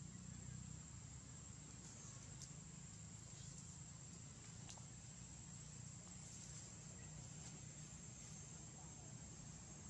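Faint, steady high-pitched insect drone, with a low hum underneath and a few faint ticks.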